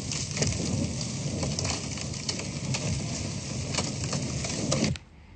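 Movie soundtrack playing in the room: a steady, dense hiss and rumble with scattered sharp clicks, which cuts off abruptly about five seconds in.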